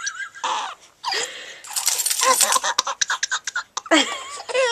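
A three-month-old baby giggling and laughing in short, breathy bursts.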